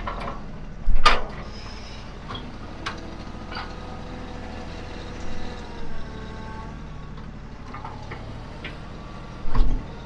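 Tractor engine running steadily while a box blade fills in a mud hole, with two loud clunks, about a second in and near the end.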